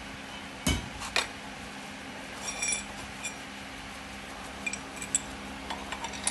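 Steel parts and loose hardware knocking and clinking during bracket assembly: two sharp knocks near the start, a short ringing metallic clink a couple of seconds in, then small clinks of nuts and washers being handled and another knock at the end.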